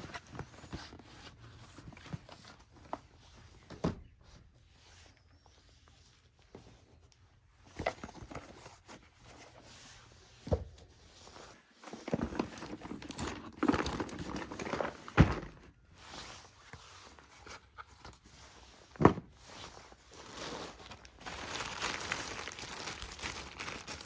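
Toy packaging being handled during an unboxing: plastic and paper crinkling and tearing in stretches, with scattered sharp clicks and knocks. Two louder knocks come about two-thirds of the way through.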